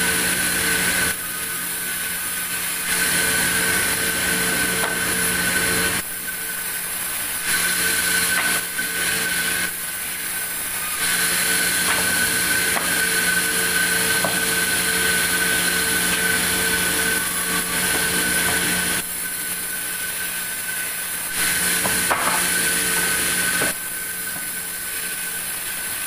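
Sawmill band saw running with a constant whine while cutting a large log; the sound swings between louder and quieter stretches several times. A few sharp knocks of timber being handled come through near the end.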